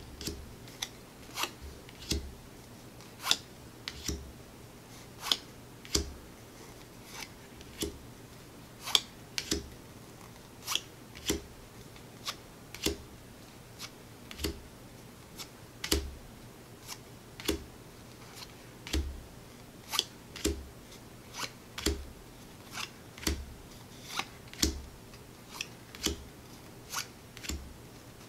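Board-game cards laid down one at a time onto a stack of cards on a cutting mat: a steady run of sharp card snaps, a little over one a second, some louder than others.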